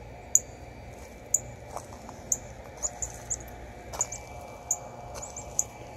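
Small songbirds calling with short, high-pitched chips about once a second, some coming in quick pairs or triples, over a low background rumble.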